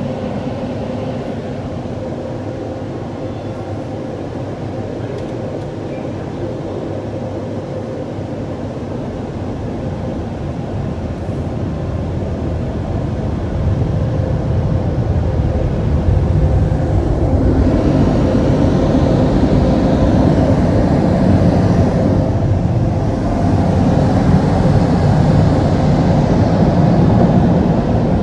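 WashWorld Razor touch-free car wash running, heard from inside the car: a steady rushing roar with a faint steady hum, getting louder about halfway through.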